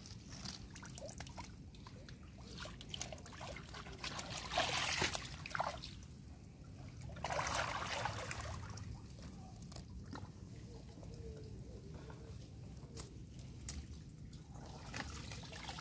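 Shallow muddy creek water sloshing and trickling as a person wades and works a plastic tube trap in it, with two louder swishes of disturbed water about five and seven seconds in and scattered small clicks.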